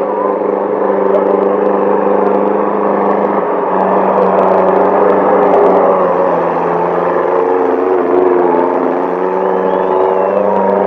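Tractor engine running hard at steady revs, a constant droning note with a wavering upper whine.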